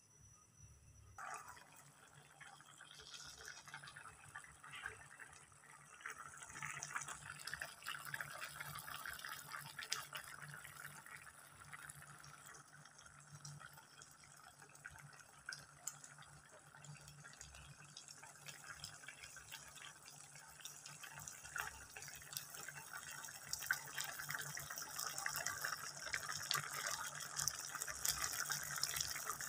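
Thick spinach and dhal curry bubbling in the pot as it simmers, a wet popping and gurgling. It starts about a second in and grows louder toward the end.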